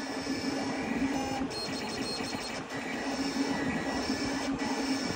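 Vinyl cutting plotter running, its blade carriage travelling back and forth as it cuts a logo out of gold chrome vinyl. A steady mechanical motor hum dips for about a second near the middle, then picks up again.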